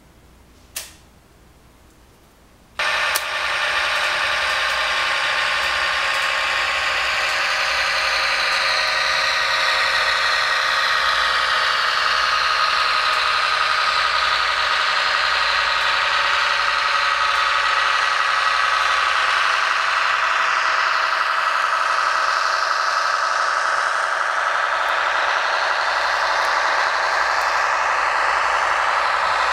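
A single light tap about a second in, then from about three seconds in the Märklin 37730 class 648.2 (LINT 41) model diesel railcar's sound decoder plays a steady diesel railcar engine sound through its small onboard speaker, thin with no deep bass, as the model runs along the track.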